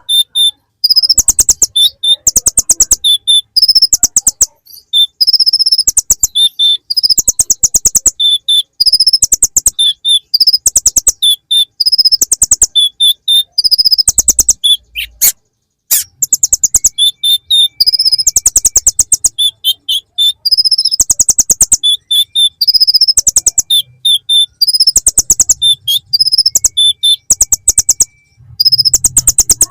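A konin (kolibri ninja sunbird) singing a loud, high chattering song of rapid note series, each phrase about a second long and repeated over and over, mimicking ciblek (prinia) phrases. About halfway there is a sharp click and a brief pause before the song resumes.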